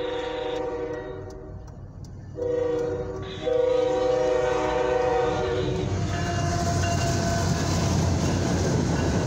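Diesel locomotive's air horn sounding the grade-crossing warning: a long blast, a short one, then a long one. After that the locomotive passes close by, its engine and wheels on the rails rumbling louder.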